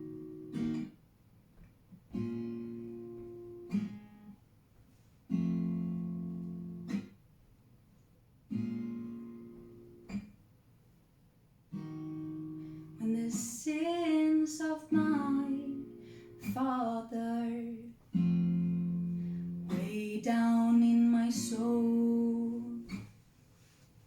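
Acoustic guitar chords struck one at a time, each left to ring and fade before a short silence. From about halfway in, a wordless voice joins, sliding between notes over the chords.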